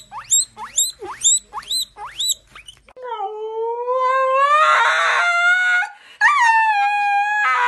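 A guinea pig squeals (wheeks) in short, high, repeated squeaks, about three a second, while being offered a strawberry. About three seconds in, a Siberian husky takes over with two long howls, each rising slowly in pitch.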